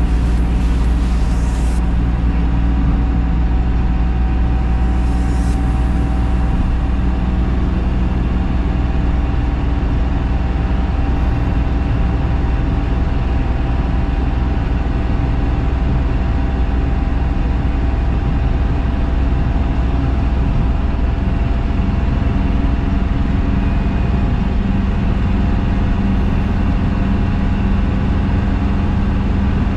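Steady drone of a DFSK Unimo light truck's 1357 cc diesel engine with road and tyre noise, heard from inside the cab while cruising at about 70 km/h and slowly gaining speed.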